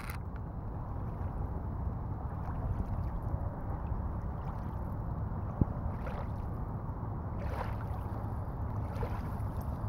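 Small waves lapping at a sandy shore, under a steady low rumble of wind on the microphone, with one sharp click about five and a half seconds in.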